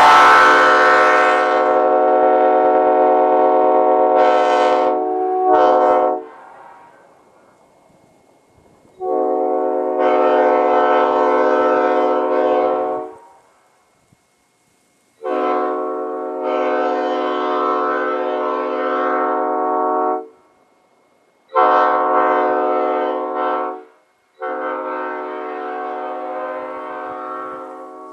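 Old-cast Nathan P5A five-chime locomotive air horn sounding its chord in five blasts of a few seconds each, with short silent gaps between them. The last blast trails off.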